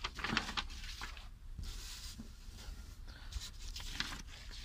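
Sheets of paper rustling and crinkling as they are handled and shuffled, in several short spells.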